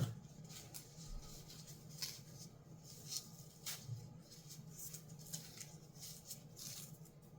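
Faint, scattered rustles and small clicks of a rock specimen being handled and unwrapped from its packing.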